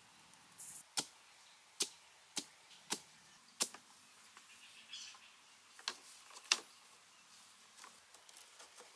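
A long wooden pole jabbed down into sandy soil again and again to make post holes, each stab a sharp thud: five in the first few seconds, about one every half second to second, then two more a little later.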